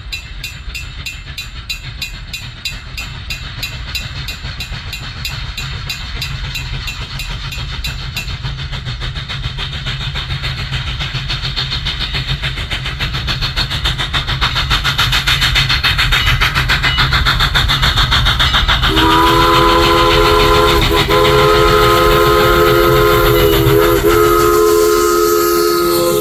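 Steam locomotive No. 89 working hard up a grade: fast, even exhaust chuffs that grow louder as it approaches. About nineteen seconds in, its three-chime whistle sounds a long chord, broken briefly twice, and carries on to the end.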